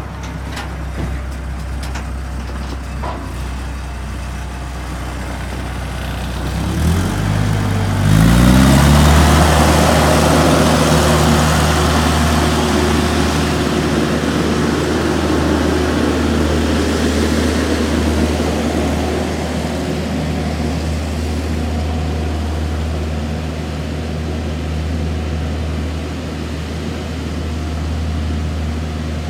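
ASV RC-85 compact track loader's diesel engine idling, then revved up about seven seconds in and held at a higher speed, running steadily and loudest just after the rev-up.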